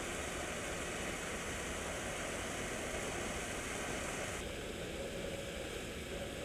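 Steady background noise: an even hiss with a low rumble beneath, no speech. About four seconds in the upper hiss drops away abruptly and the sound turns duller.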